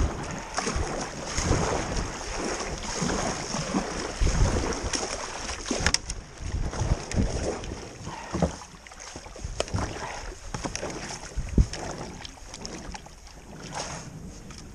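Kayak paddle strokes splashing in a slow river while the plastic kayak is forced through the branches of a fallen tree, with scraping and sharp knocks against the hull, the loudest about three-quarters of the way through. Wind buffets the microphone.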